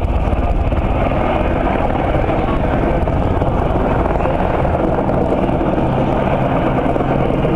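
Sikorsky UH-60 Black Hawk helicopter running close by, its rotor beating in a steady, rapid pulse over loud turbine noise.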